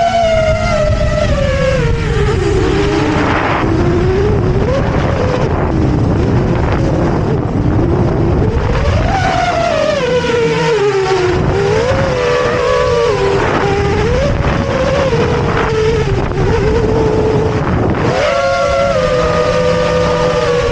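FPV quadcopter's brushless motors and propellers whining, the pitch falling and rising with throttle and holding steady near the end. Wind rushes over the onboard camera's microphone underneath.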